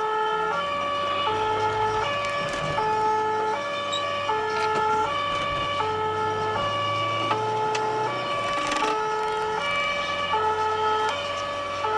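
Two-tone emergency siren of a fire brigade officer's car on an alarm run, alternating steadily between a low and a high note about every three-quarters of a second. It is heard from inside the car, with the engine and road noise underneath.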